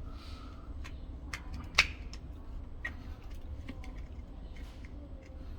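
Sharp, irregular clicks and taps of a flathead screwdriver working at the plastic clips of a smart-lock housing as it is pried open, the loudest click about two seconds in, over a steady low hum.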